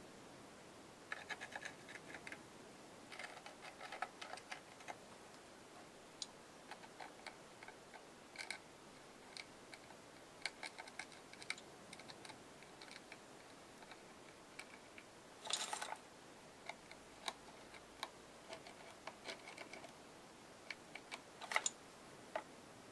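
Faint, scattered small clicks and taps of hands working a plastic squeeze bottle of paint over a cardboard board-book page, with a louder crackle about two-thirds of the way through and another near the end.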